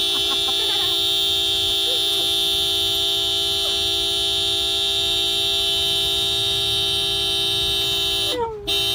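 A loud, steady horn-like tone held on one pitch, with a brief break near the end before it sounds again.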